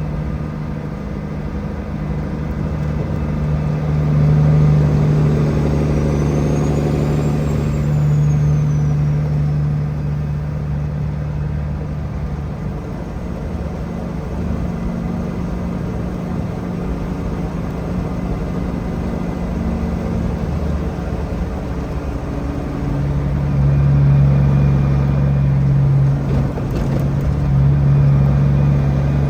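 Truck engine running steadily with a low, even hum, growing louder about two-thirds of the way through.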